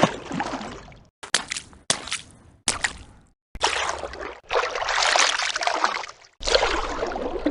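Water sloshing and splashing in separate short takes, each cut off abruptly with silence between: a few brief splashes in the first three seconds, then longer stretches of sloshing. It is a swimming sound effect for a dinosaur.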